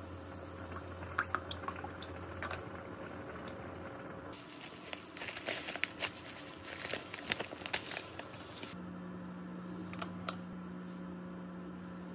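Heavy cream pouring from a carton into a ceramic bowl, then a plastic pouch of garlic powder crinkling and rustling with light clicks as it is shaken over the bowl, from about four seconds in to near nine seconds.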